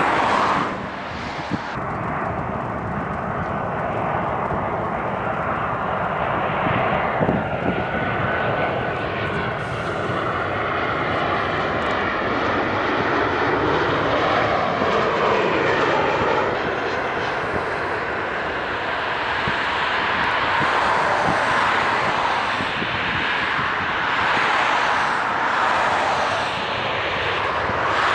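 Boeing 737's CFM56 jet engines on landing approach: a steady, continuous roar that swells and shifts in tone as the airliner passes low overhead, running on as it lands.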